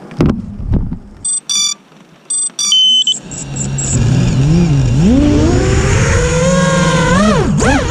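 Small FPV quadcopter: a few handling knocks, two short groups of electronic beeps as it arms, then its brushless motors spin up with a whine that rises in pitch and swings up and down with the throttle.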